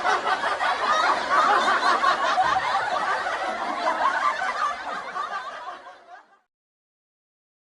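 Laughter sound effect: snickering and chuckling that fades out about six seconds in, leaving silence.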